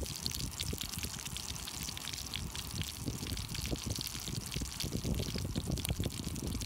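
Sausages frying in fat in a camping frying pan on a gas stove: a steady sizzle full of small pops and crackles, over a low rumble.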